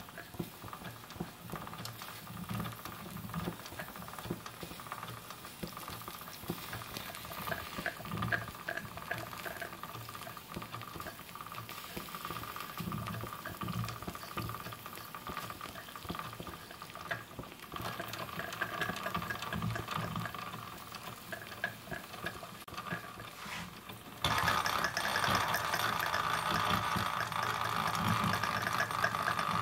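Wilesco live-steam tractor running slowly: a steady hiss and sizzle of steam with soft, irregular low chuffs from the chuffer in its exhaust stack and the clatter of its noisy stamped metal gears. About three quarters of the way through the sound suddenly gets louder, with a steady high whine over a denser rattle.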